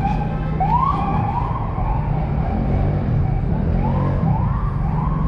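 Police siren whooping in short rising sweeps, one run about a second in and another about four seconds in, over a steady engine hum.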